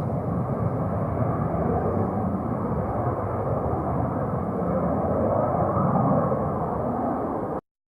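Steady rumbling jet engine noise from a Cessna UC-35A1 twin-turbofan business jet, heard out in the open. It cuts off suddenly near the end.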